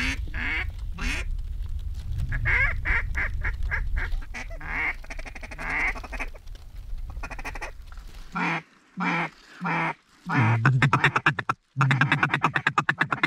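Mallard quacking: series of quacks repeating throughout, loudest and closest in the last few seconds, where they run into rapid chatter. A low wind rumble on the microphone lies under the first eight seconds or so and then stops abruptly.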